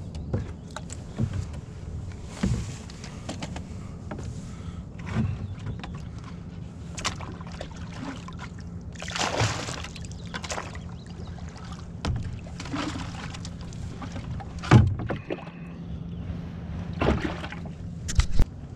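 Irregular knocks, bumps and short scrapes on a canoe as gear and people shift in the boat, over a steady low hum. The loudest knock comes about 15 seconds in, and a low thump follows near the end.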